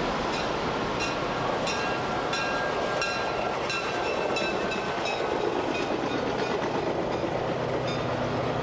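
Passenger train running on the rails: a steady rumble with light, regular clicks about every two-thirds of a second, and a low hum coming in near the end.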